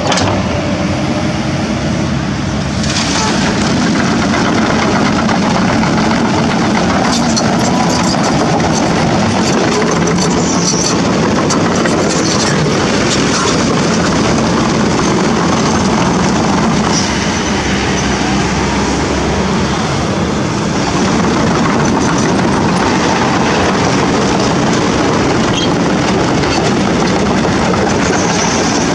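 Kobelco SK200-10 hydraulic excavator working: its diesel engine runs steadily under load, with the clanking of its steel crawler tracks and scattered knocks.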